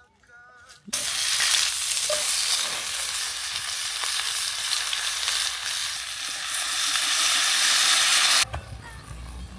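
Food sizzling in hot oil in a pan: a loud, steady sizzle that starts abruptly about a second in and cuts off suddenly near the end.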